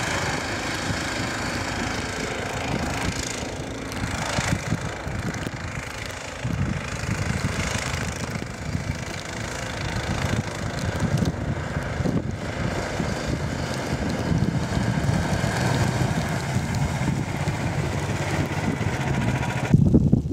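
Engine of a Pomor motorised towing dog (tracked snow tug) running as it crawls through deep wet snow, with a short drop and rise in level about six seconds in.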